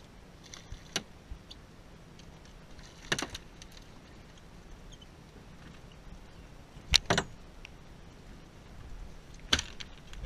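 A few sharp knocks and clatters on a small fibreglass boat as a mackerel rig is handled over the side: four distinct hits, the loudest about seven seconds in, over a faint steady background of wind and water.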